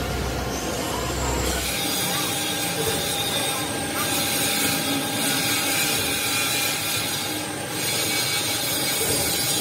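Machine-shop machinery running steadily: a dense, even noise with faint steady whines in it, and a low hum underneath that stops about two seconds in.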